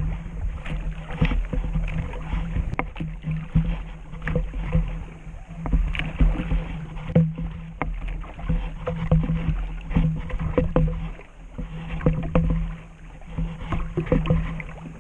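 Water sloshing and slapping against a plastic sit-on-top kayak's hull, with irregular knocks and splashes over a steady low rumble, picked up by a camera mounted on the hull.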